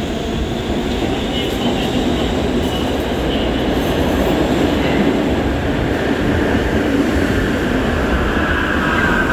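R68 subway train moving through an underground station: a steady, loud rumble of wheels on the rails, with a faint high whine that falls slightly near the end.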